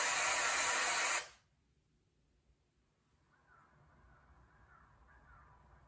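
A loud burst of hiss like TV static from the horror film's soundtrack, cutting off suddenly about a second in. Then it goes nearly quiet, and faint outdoor ambience comes in as the film shows woods.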